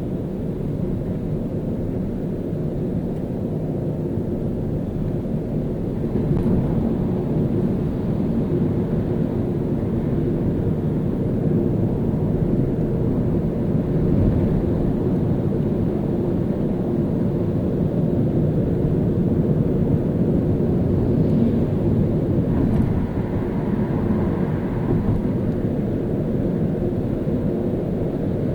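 A car driving on city streets: a steady low rumble of engine and tyre road noise. It gets slightly louder about six seconds in.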